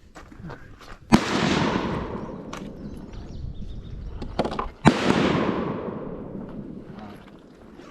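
Two gunshots about four seconds apart, each a sharp crack followed by a long rolling echo that fades over a couple of seconds.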